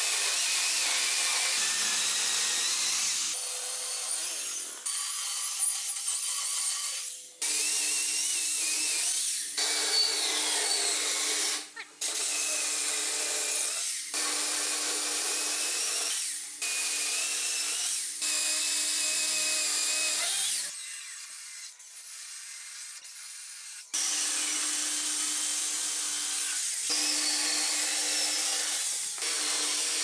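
Corded Makita electric chainsaw running and cutting into solid wood, the motor's steady whine under the chain's rasp. The sound breaks off and restarts abruptly several times, with a quieter stretch about two-thirds through.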